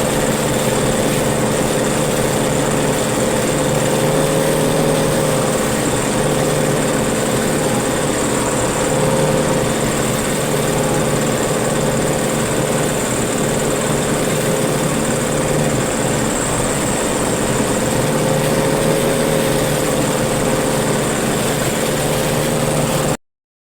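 Maxxi Bimo 102L rice combine harvester running steadily, its engine hum topped by a steady high whine; the sound cuts off suddenly near the end.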